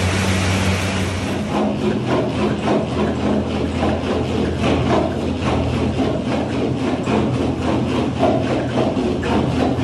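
A fan air bike whooshing under hard pedalling for about the first second. It gives way to a sprint on a curved manual treadmill: quick, even footfalls striking the slatted belt over its steady rolling rumble.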